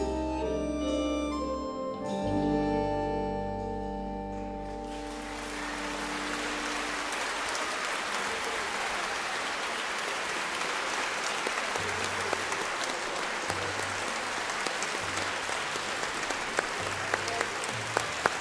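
Symphony orchestra holding the final sustained chords of a song, with deep low notes, which fade out about five seconds in. Audience applause takes over and carries on steadily, with a few sharper single claps standing out near the end.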